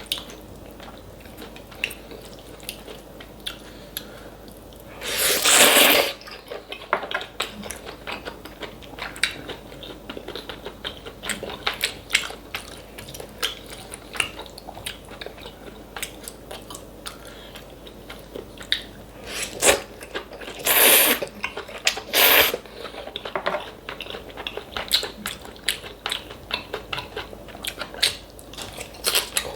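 Close-miked eating sounds: chewing and crunching as a run of small wet clicks, broken by three loud slurps of kalguksu noodles, one about five seconds in and two close together about twenty-one seconds in.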